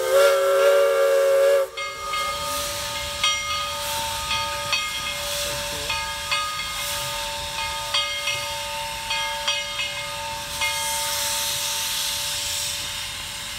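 Steam locomotive whistle sounding a chord of several tones that cuts off sharply about two seconds in, followed by the steady hiss of steam escaping from the 2-4-4-2 Mallet logging locomotive, with short sharp clicks about twice a second.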